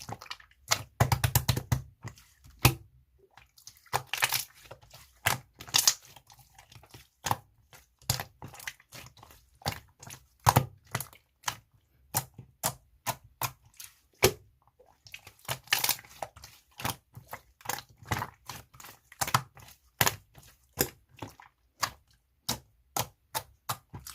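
Pink marbled slime being pressed, poked and stretched by hand, making an irregular run of sharp clicks and pops with several bursts of quick crackling.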